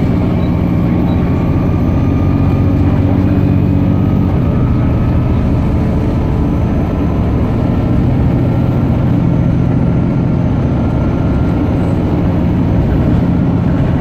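Volvo B7TL double-decker bus under way, heard from inside the passenger saloon: the rear-mounted Volvo D7C six-cylinder diesel runs steadily over road and body noise. Its note drops about four seconds in and picks up again a few seconds later, with a faint high whine over it.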